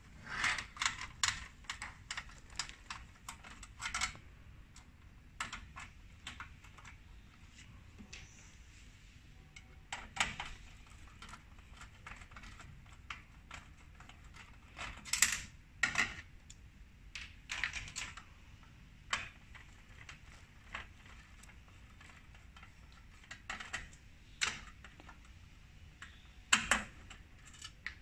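Screwdriver working small screws out of a printer's sheet-metal back panel: irregular light clicks and taps of the tool on the screw heads and metal.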